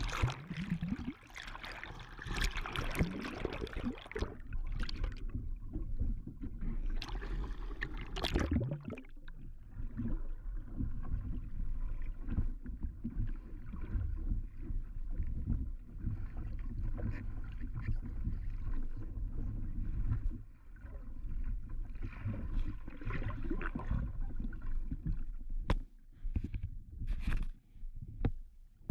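Water rushing past a GoPro held underwater on a windsurf foil, heard muffled through the camera housing as a steady low rumble. It is louder and splashier for the first eight seconds or so, then settles.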